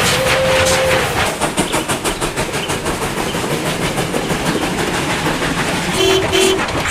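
Steam locomotive sound effects: rapid, even chuffing with the clatter of wheels on rail joints. A held tone ends about a second in, and two short whistle toots sound near the end.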